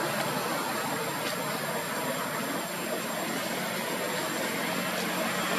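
Steady outdoor background noise: an even hiss with no distinct calls or knocks.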